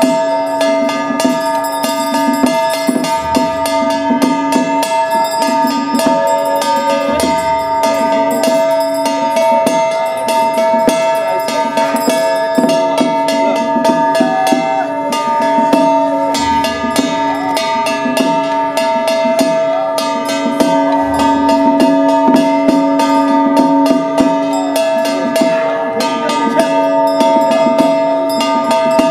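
Taoist priest's ritual handbell shaken continuously, its clapper striking fast so the ring is held as a steady chime, over ritual percussion with a few low thumps.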